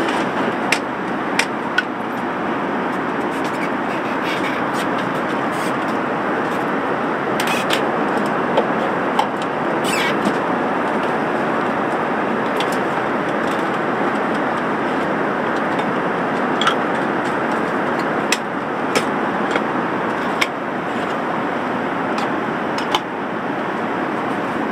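Steady in-flight cabin noise of an Airbus A380 airliner at cruise, an even rush with scattered small clicks and knocks of things being handled.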